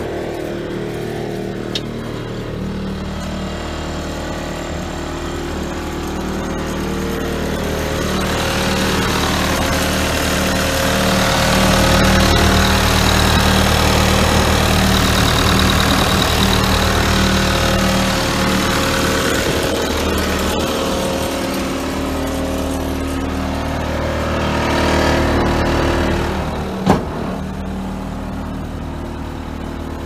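Case TV380 compact track loader's 90 hp diesel engine running steadily. It gets louder through the middle stretch, and there is one sharp click near the end.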